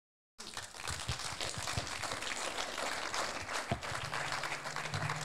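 Audience applauding: many hands clapping, starting suddenly about half a second in and holding steady. A low steady hum joins about four seconds in.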